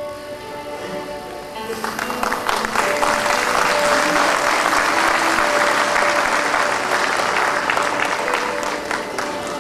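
An audience applauding. The clapping starts about two seconds in and eases slightly near the end, over soft background music with long held notes.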